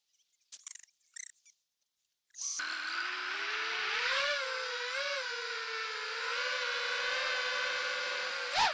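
A few faint ticks and rustles, then, a little over two seconds in, the quadcopter's four Emax RS2205 2300KV brushless motors with 5-inch three-blade props spin up to a steady high whine. The pitch wavers with the throttle, and near the end it swoops up and down three times in quick succession.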